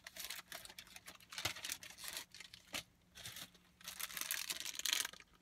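Plastic wrapper of a Pokémon card promo pack being torn open and crinkled by hand, a run of uneven rustles and tears.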